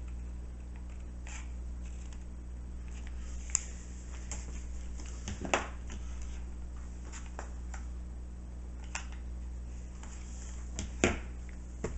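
Small clicks and knocks from a hot glue gun being handled over a steady low electrical hum. The sharpest knock comes about five and a half seconds in as the gun is set down on the countertop, with a few more light clicks near the end.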